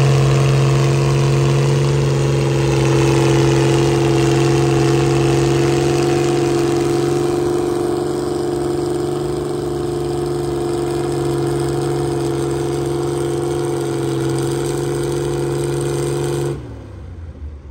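Antique Farmall tractor engine running steadily under load as it pulls a weight-transfer sled, its pitch holding level. The sound cuts off abruptly near the end.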